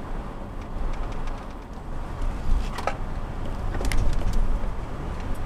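Low, steady rumble of a car driving, heard from inside the vehicle, with a few light clicks about three and four seconds in.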